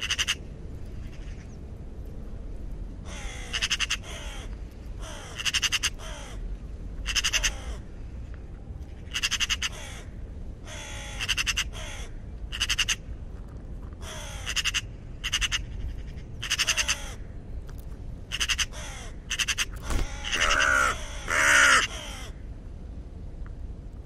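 Raven calling: a string of short, harsh croaking caws, often in quick pairs or threes, with the loudest calls near the end, over a low steady rumble.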